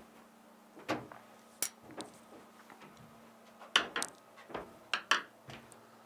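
Scattered light knocks and clicks, about ten, irregularly spaced, from someone moving about and handling things in a small room.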